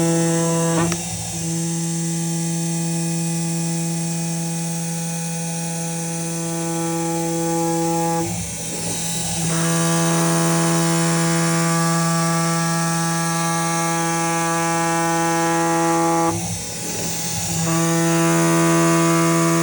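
CNC gasket-cutting machine cutting 15 mm rubber sheet: a steady, even machine hum with a high hiss, broken three times by short rougher stretches where the hum drops out for about a second.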